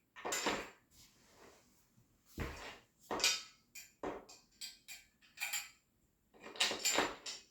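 Flat-pack dresser parts being handled and a screw driven in by hand: irregular knocks of the panels and small metallic clinks of the screw and tool, with short pauses between.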